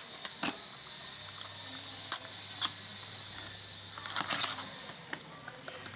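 Packaging being handled and opened during an unboxing: scattered clicks and rustles, with a denser cluster about four seconds in, over a steady high hiss.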